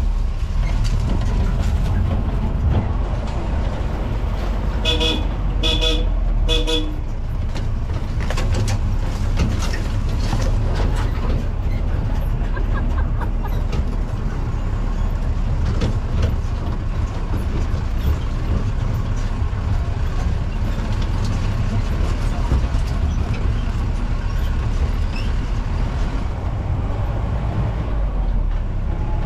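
Off-road jeep running over a rough track, a steady low engine rumble with knocks and rattles from the bumpy ride. Three short horn toots about five seconds in.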